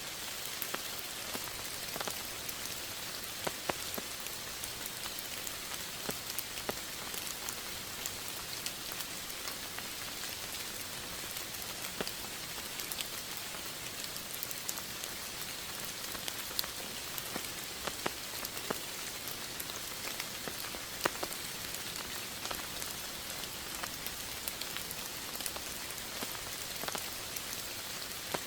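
Steady rain falling: an even hiss with many individual drops ticking sharply throughout.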